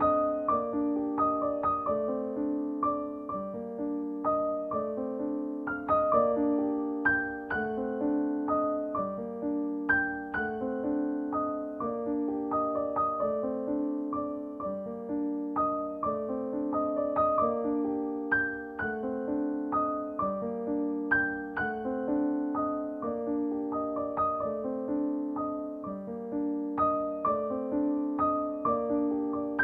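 Background music: a gentle solo piano playing a steady run of notes.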